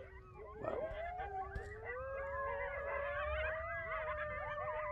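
Several coyotes howling and yipping at once, their wavering calls overlapping, with one long howl held from about halfway through.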